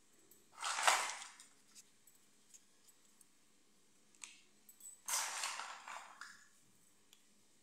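Small plastic toys handled and set down on a marble floor: two soft swishing scrapes, each about a second long, one about a second in and one about five seconds in, with a few faint clicks between.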